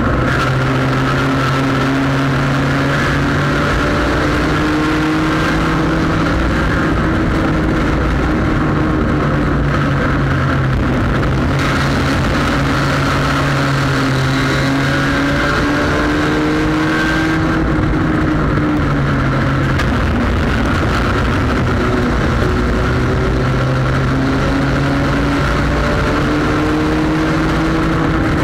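Front-wheel-drive sport compact race car's engine heard from inside the car, running hard under racing load, its pitch slowly rising and falling with the throttle through the laps, over heavy road and wind noise.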